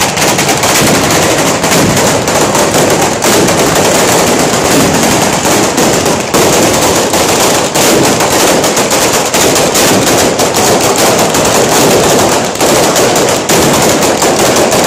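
Firecracker battery (batteria) going off: a long string of firecrackers laid along the street bursting in a continuous, rapid, loud crackle of bangs that breaks out suddenly at the start.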